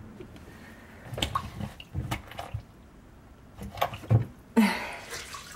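Microfibre cloth wiping and soaking up standing water from the filter sump at the bottom of a dishwasher tub, in scattered soft wet rubs and squishes.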